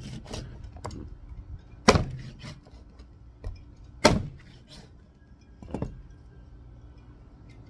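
Meat cleaver chopping duck pieces on a wooden board: two heavy chops about two seconds apart, then a lighter knock near the end.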